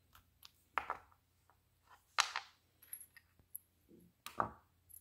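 Small clicks and metallic clinks of steel precision Torx bits being handled and swapped in a screwdriver handle, with three sharper clicks: about a second in, a little after two seconds, and near the end.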